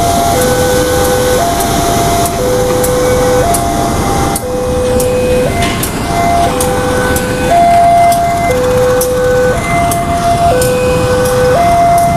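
Railway level-crossing warning alarm sounding an electronic two-tone signal, low and high notes taking turns about once a second. Under it runs the engine of a CC201 diesel-electric locomotive moving slowly through the crossing.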